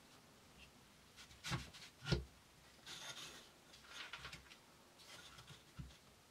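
Faint handling sounds of a compact trim router being set on an MDF board, with the motor not running: two soft knocks in the first couple of seconds, then light rustling and scraping, and a last small knock near the end.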